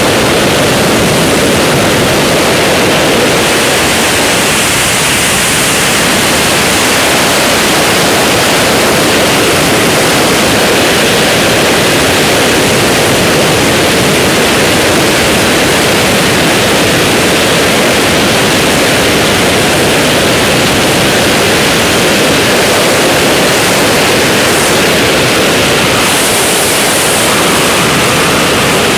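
Loud, steady rush of freefall wind over a camera's microphone during a skydive.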